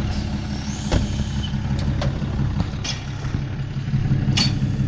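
Cummins diesel engine of a Ram 2500 pickup idling steadily, with a few short knocks and clicks over it.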